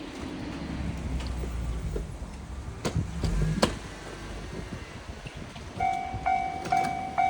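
Low street-traffic rumble with two sharp clicks, then near the end a Japanese railroad crossing's electronic warning bell starts up, ringing about twice a second.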